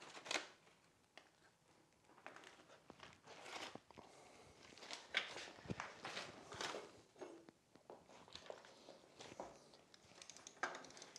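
Faint, irregular rustling, shuffling and light clicks and knocks of hands-on work at a motorcycle frame: tools and parts handled at the swing arm pivot, and feet moving on the floor.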